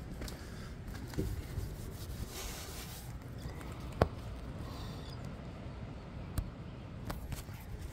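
Wind rumbling on the microphone, with a few sharp knocks, the loudest about four seconds in.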